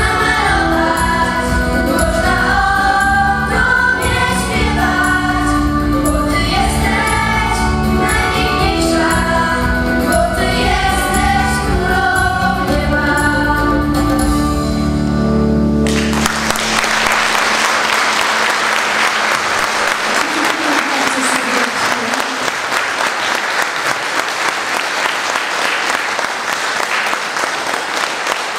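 A children's choir singing with instrumental accompaniment that carries steady low bass notes; the music stops suddenly about halfway through and the audience breaks into applause for the rest.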